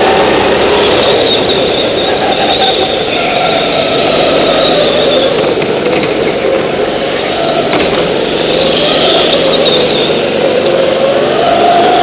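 Go-kart engine running hard, its pitch rising and falling repeatedly as the throttle is opened and eased.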